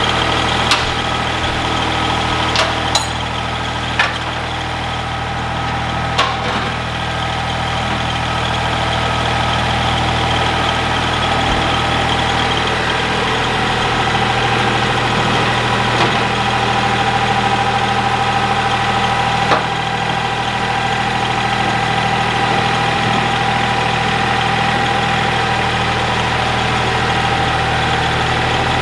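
Ford 1710 compact tractor's diesel engine idling steadily, with a few sharp knocks scattered over the first few seconds and a couple more later.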